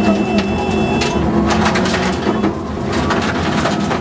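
Subaru Impreza WRX STI rally car heard from inside the cabin on a gravel stage. The turbocharged flat-four engine runs under load while gravel and stones rattle against the underbody, the rattling growing denser after about a second and a half.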